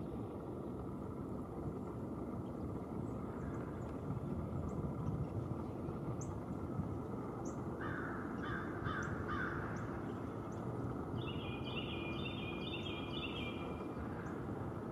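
Birds calling over a steady background hiss: a quick run of about four harsh calls about eight seconds in, then a fast chattering series of high notes a few seconds later, with faint high chips scattered throughout.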